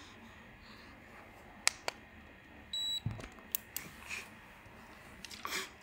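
A short, single electronic beep about three seconds in, among a few sharp clicks and a low thump; the loudest click comes just before the beep.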